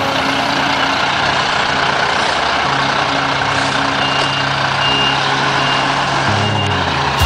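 Mercedes-Benz fire engine's diesel engine running close by as the truck manoeuvres slowly. From about halfway through, a reversing alarm beeps about once a second.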